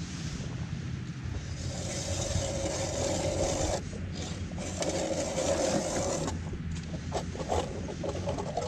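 Small ultralight spinning reel being cranked to bring a fish up through an ice hole: a whirring scrape in two spells of about two seconds, each stopping suddenly. A few light clicks follow near the end.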